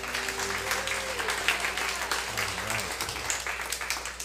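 A congregation applauding, a dense patter of clapping with a few voices mixed in; the band's last held note dies away at the start and the clapping thins near the end.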